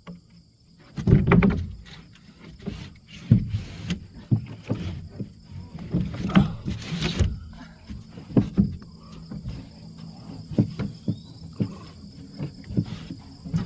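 Irregular knocks, thumps and scrapes of a plywood roof sheet being shifted and handled on the roof framing, with footsteps among them. A steady high insect chirring runs underneath.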